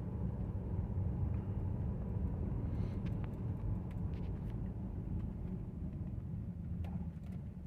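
Steady low rumble of a Chevrolet Cruze heard from inside the cabin: engine and road noise. The car is running smoothly, the slight misfire from a leaking ignition coil having been cured.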